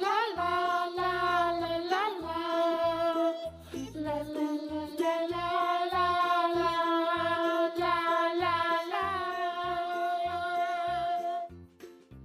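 Children's song with a sung vocal over a steady beat, fading out near the end.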